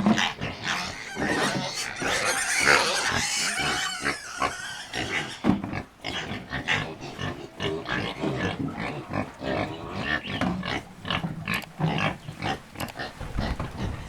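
Pigs grunting and squealing, most dense in the first four or five seconds, then in many short separate calls.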